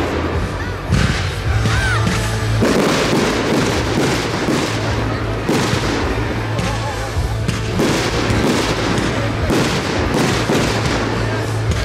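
Aerial fireworks shells bursting one after another, a sharp bang roughly every second, with music playing underneath.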